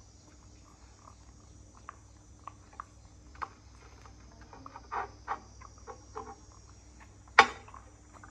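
Crickets or other insects chirring steadily in the background, with scattered light clicks and taps at the table and one sharp tap a little after seven seconds in, the loudest sound.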